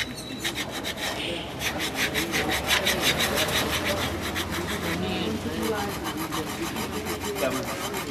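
Shoe repairer's knife being sharpened on a flat whetstone: a fast rhythmic scraping of steel on stone, about six strokes a second, strongest between about two and five seconds in, then lighter.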